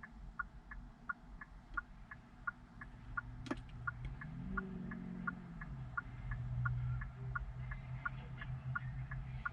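Rapid, evenly spaced ticking, about four ticks a second, over a low steady hum that comes in about three seconds in.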